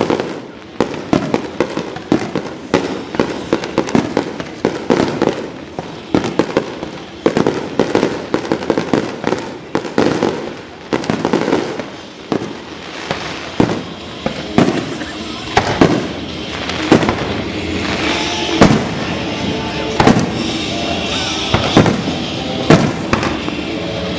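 Aerial fireworks bursting in rapid, dense succession, many sharp bangs a second. From about halfway through, music over loudspeakers plays steadily beneath the explosions.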